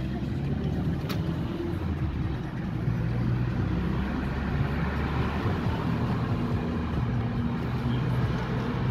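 Car engine and tyre noise heard from inside the cabin while driving, a steady low hum throughout, with a brief tick about a second in.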